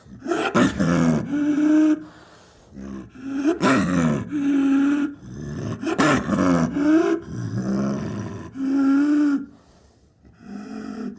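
Big cat roaring and growling in a series of about five drawn-out calls, each a second or two long, with short pauses between them.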